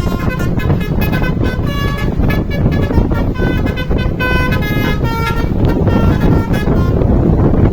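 Basuri musical air horn on a Po. Dewi Permata bus playing a tune of short notes that change pitch every fraction of a second, over loud engine and road noise. The tune stops near the end, leaving the engine and road noise.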